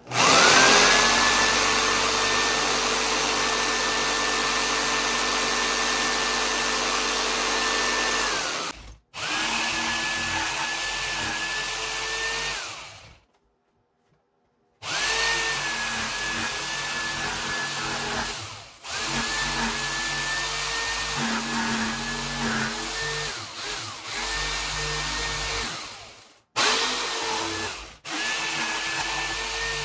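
Corded electric jigsaw cutting through a C4 Corvette's removable roof panel. The motor spins up to a steady whine, stops and restarts several times, with a gap of about a second and a half near the middle. Its pitch sags briefly as the blade loads.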